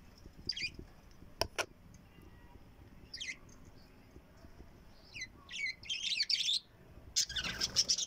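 Pet parrots giving short high chirps and twitters: a few scattered calls, then a busier spell of chattering over the last three seconds. Two sharp clicks come about a second and a half in.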